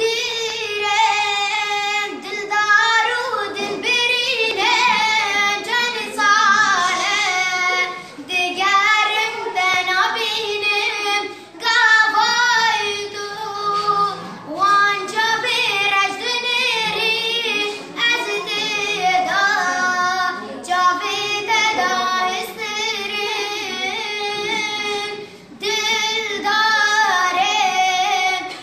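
A boy singing a Kurdish song in a high voice, with a wavering, ornamented melody sung in long phrases broken by brief pauses for breath.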